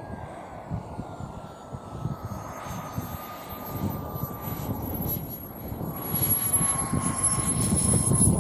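Jet Munt 100 model jet turbine whining as the model comes in low on its landing approach, the whine slowly falling in pitch and growing louder near the end.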